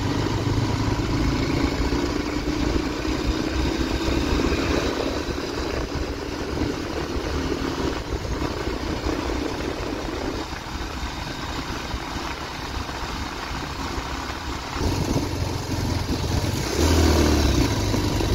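Motorcycle engine running while riding, under a steady rush of wind and road noise. The engine sound eases about ten seconds in and grows louder again near the end.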